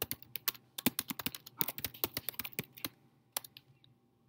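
Typing on a computer keyboard: a quick run of key clicks for about three seconds, then a single keystroke and a pause.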